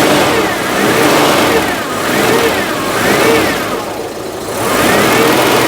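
Citroën GSA's air-cooled flat-four engine running with a loud whining noise that wavers up and down in pitch about once a second, with a brief dip about four seconds in. The noise is suspected to come from the alternator and is heard here with the alternator belt at a new tension; it is described as less, but still quite a lot of "gremlin".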